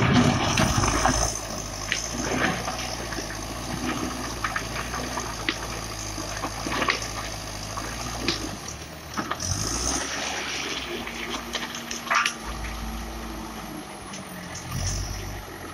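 JCB backhoe loader's diesel engine running under load as its front bucket scoops stone chips, with stones clattering and grinding against the bucket. A steady higher tone joins the engine for a few seconds near the end as the loaded bucket is raised.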